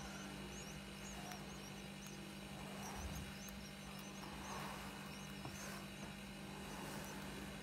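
Goldfinch nestlings giving thin, high begging cheeps, a few a second, over a steady low hum.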